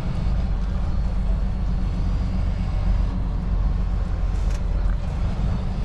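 Semi truck's diesel engine running at low speed, a steady low rumble heard from inside the cab.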